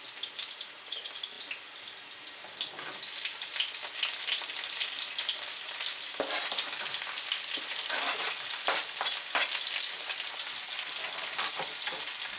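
Vegetables sizzling in hot oil in a frying pan, the sizzle growing louder as chopped bell pepper and celery are scraped in off a cutting board with a knife. Scattered clicks and scrapes of the knife and falling pieces come mostly about halfway through.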